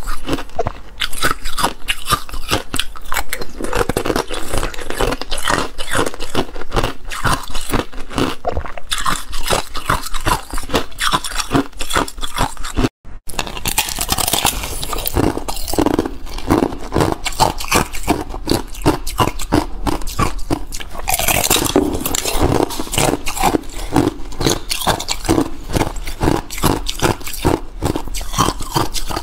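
Ice being bitten and crunched in the mouth, close to the microphone: a dense, fast run of sharp cracking crunches, broken by a brief silent gap about halfway. The ice is thin, clear and brittle, snapping between the teeth.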